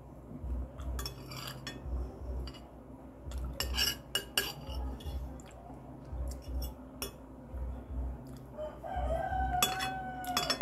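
Metal spoon clinking and scraping against glass plates, in scattered sharp clicks. Near the end a rooster crows once, one long call of about two seconds.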